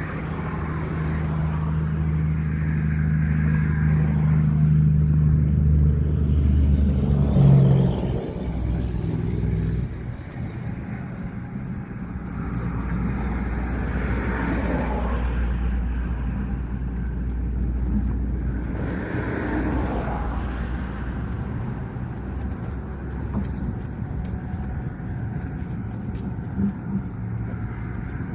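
A car driving along a highway: steady engine and road noise, with a few swells as other vehicles go by.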